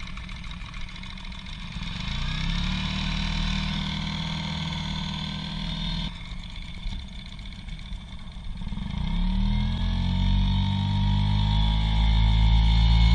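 Small Mercury outboard motor on an inflatable dinghy running under way. Its pitch climbs as the throttle opens about two seconds in, and again, louder, in the second half.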